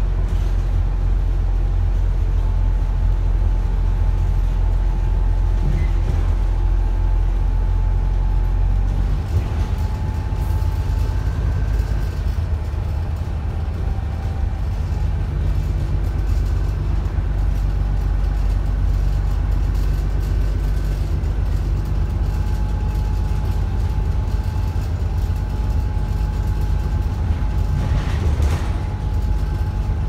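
ADL Enviro 400 double-decker bus's rear-mounted diesel engine pulling under way, heard inside the cabin: a low engine drone under a thin, steady turbocharger whine that shifts in pitch a few times.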